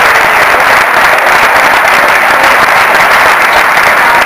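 Audience applauding, a loud, steady clapping.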